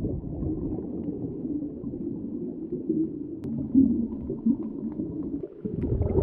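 Muffled underwater rumbling and gurgling, heard through a diving camera's underwater housing, irregular and without a steady rhythm.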